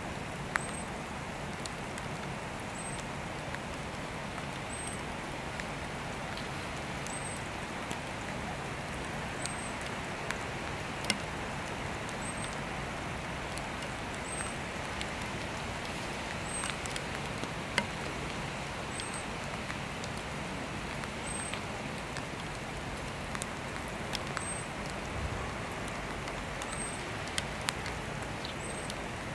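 Steady rain falling, with scattered sharp taps of drops landing close by. A faint high chirp repeats about every two seconds.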